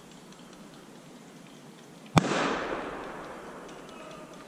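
A single shotgun shot about two seconds in, its report rolling away and fading over about a second and a half.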